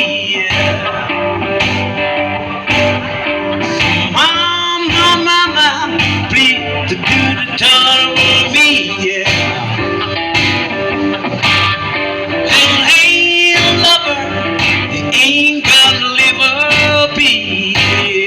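Live blues band playing: electric guitar with a steady drum beat, and a singing voice or guitar bends rising and falling in pitch.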